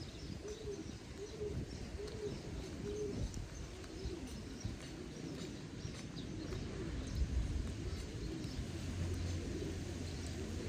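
A dove cooing over and over in a repeated low phrase, with small birds chirping faintly. A low rumble comes in about eight seconds in.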